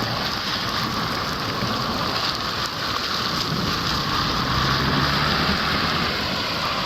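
Steady rain pouring down and splashing on the ground and surfaces.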